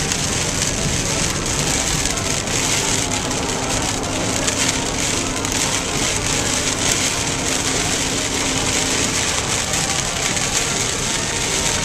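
Steady hiss of a car driving on a rain-soaked road, heard from inside the cabin: tyres on wet pavement mixed with rain spattering on the roof and windshield.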